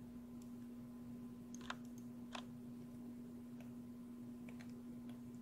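Faint, scattered clicks of a computer mouse and keyboard, two of them louder about two seconds in, over a steady low hum.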